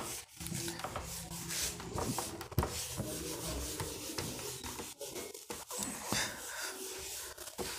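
Handwriting: scratchy rubbing strokes of a writing implement across a writing surface, with small clicks and taps in between.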